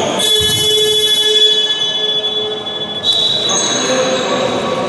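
Basketball scoreboard buzzer sounding one long steady blast of nearly three seconds in a large sports hall, then cutting off.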